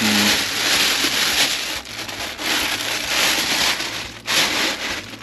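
Clear plastic packaging bag crinkling and rustling as a throttle-body unit is pulled out of it, in several loud bursts with short pauses.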